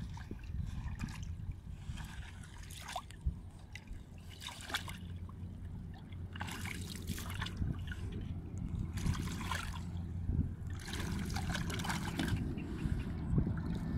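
Shallow water splashing and trickling as hands scoop and push mud and water around a plastic jug sunk in a muddy channel, in several sloshing bursts over the second half. A low engine-like drone runs underneath and swells toward the end.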